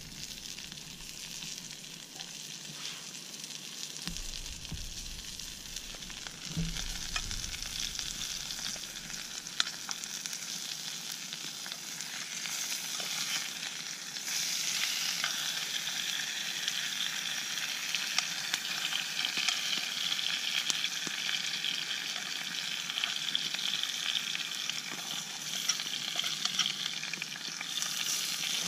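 Food frying in a pan over a campfire: a steady sizzle that grows louder about ten seconds in and again around fourteen seconds, with a few sharp crackles.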